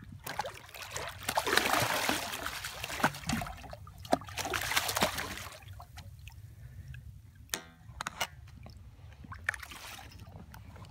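A hooked redfish splashing and thrashing at the water's surface beside a boat as it is grabbed by hand, in loud bursts for the first five seconds or so. After that it goes quieter, with a few sharp knocks and a brief rattle.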